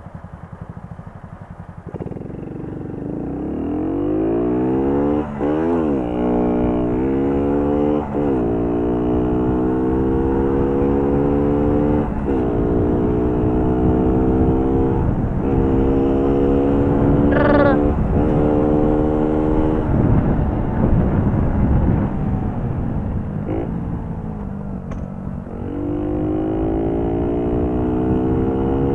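Four-stroke mobilete (moped) engine accelerating hard through the gears. The note climbs and drops at each of several shifts, then backs off into road and wind rumble before climbing again near the end.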